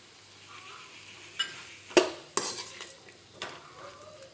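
Steel ladle stirring sliced bitter gourd in a stainless steel kadai, scraping and clinking metal on metal several times after a quiet first second, the loudest clink about two seconds in. A faint sizzle of the vegetables frying in oil runs underneath.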